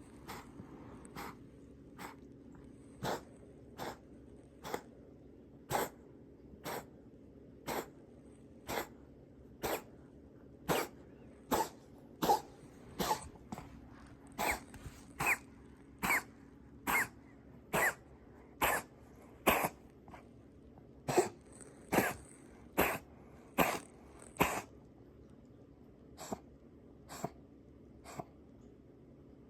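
A young cat coughing in a long fit of short, sharp coughs, about one a second. They are loudest in the middle, then after a brief pause a few weaker coughs come near the end. It is a recurring cough that the vet suspects may be feline asthma or heart failure.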